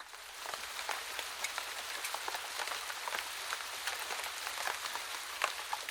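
Rain falling: a steady hiss with many separate drop clicks, fading in over the first second.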